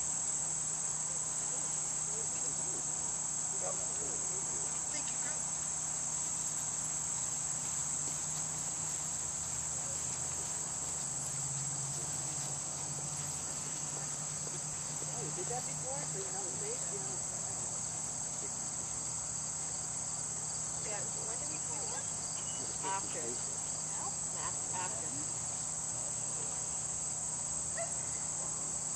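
Steady, high-pitched chorus of insects, an unbroken trill that does not change.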